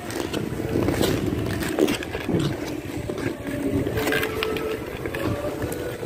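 Speed-skate blades scraping across hard, crunchy rink ice in repeated strokes as a skater pushes along.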